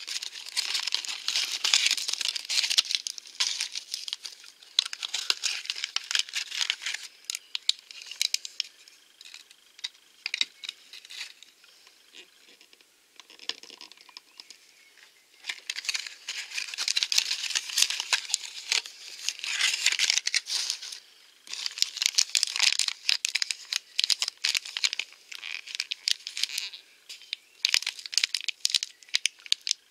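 Plastic and cardboard blind-box toy packaging crinkling and tearing as it is opened by hand, in two long spells with a quieter lull midway. Near the end it is a yellow plastic foil wrapper being pulled open.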